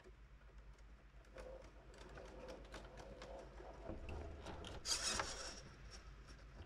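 Radio-controlled rock crawler with a brushless motor climbing rocks: a faint motor and gear whine, small clicks of tyres and drivetrain on stone, and a brief loud scrabble of the tyres on rock about five seconds in.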